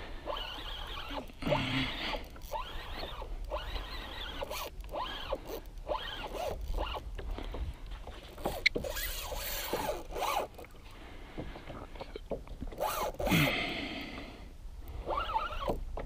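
Small spinning reel being cranked while fighting a hooked blackfin tuna on light tackle, with an uneven rasping whir of gears and line. There is a louder burst near the end.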